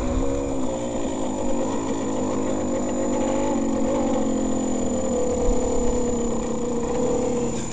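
Yamaha DT200R single-cylinder two-stroke engine running under the rider, its note rising and falling with the throttle at first and then holding steady, before cutting off suddenly at the end, with wind rumbling on the helmet-mounted microphone.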